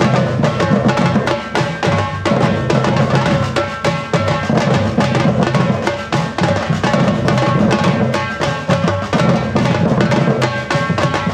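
Afro-Brazilian percussion band (batucada) drumming a dense, driving rhythm without a break, with deep bass drums under sharper strokes.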